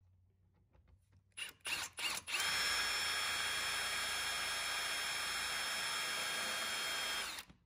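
Power drill with a step drill bit boring into the plastic of a GMC grille emblem: three short blips of the trigger, then a steady whining run of about five seconds that cuts off suddenly near the end.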